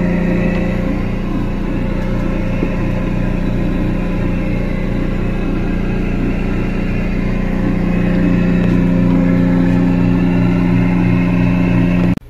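A steady machine drone: a motor or engine running with a low hum and a rough, noisy edge, cutting off suddenly near the end.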